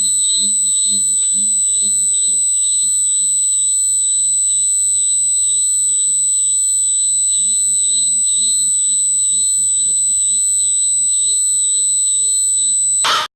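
A continuous high-pitched electronic alarm tone, held steady without a break, with a faint low hum beneath it; it cuts off suddenly near the end.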